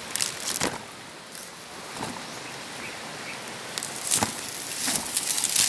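Footsteps on a dirt trail with leafy plants brushing past, a handful of uneven rustling crunches, the loudest and longest near the end, over a steady background hiss.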